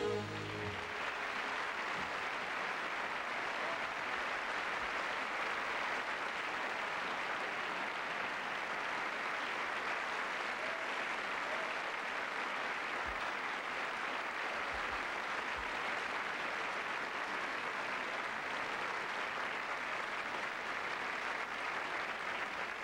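A large theatre audience applauding steadily, a dense even clapping that holds its level throughout. The final note of the song's accompaniment dies away in the first second.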